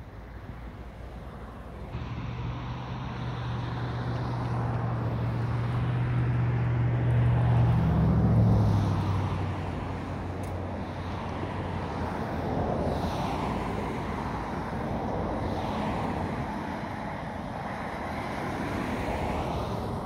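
Road traffic going by: one vehicle's engine hum builds to its loudest about eight seconds in and drops in pitch as it passes, then several more cars swish past.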